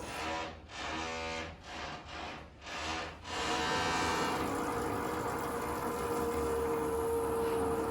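Construction work noise from renovation of the building: machinery noise that drops away and comes back three or four times over the first three seconds, then runs steadily with a constant hum.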